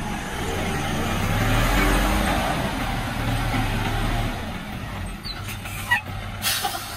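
Diesel engine of a Hoa Mai light dump truck running as the loaded truck drives slowly past over dirt, easing off after about four seconds as it pulls up. A short sharp hiss near the end as the truck's air brakes vent.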